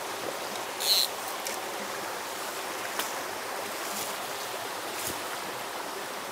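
Small mountain creek running steadily over rocks. About a second in there is a brief hiss, and a few faint clicks follow.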